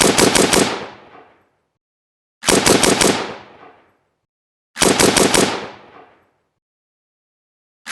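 AK-47 assault rifle firing short automatic bursts of about five rounds each, a burst every two and a half seconds or so, each shot ringing out in a fading echo.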